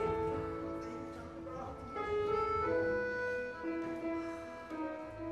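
Accordion and a small instrumental ensemble playing slow music in long held notes and chords.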